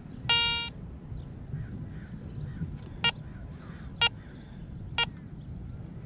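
Garrett ACE 400 metal detector's electronic target tone: one longer beep near the start, then three short beeps about a second apart, signalling a target that reads about 25 on its ID scale.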